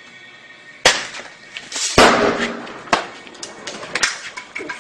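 Firecrackers going off: four sharp bangs about a second apart, with crackling between them.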